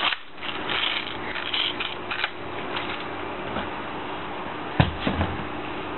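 Clicks and plastic rattles of a Jing Gong G36C airsoft replica being handled, with one sharp knock a little before the end, over a steady background noise.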